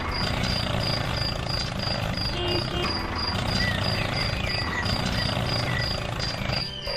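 Small electric motor and gearing of a homemade miniature toy tractor running as it drives over dirt pulling a loaded trailer, a steady whirring that cuts off abruptly near the end. Crickets chirp high and evenly, about three times a second, throughout.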